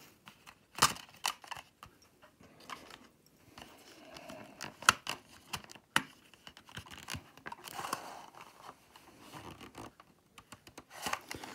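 Playing cards and a board game's box insert being handled: decks set down and slid into the tray's compartments, giving a run of sharp clicks and taps with light scraping and rustling. The loudest clicks come about a second in and about five seconds in.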